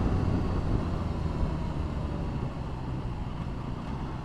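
Motorcycle engine running steadily under way, with wind and road noise; the sound gradually gets quieter.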